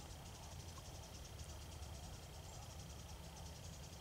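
Faint insects chirring in a fast pulsing trill, with a steady thin high tone beside it and a low rumble underneath.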